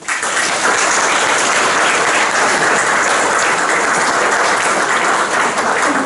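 Audience applauding, starting suddenly and continuing steadily as a dense patter of many hands clapping.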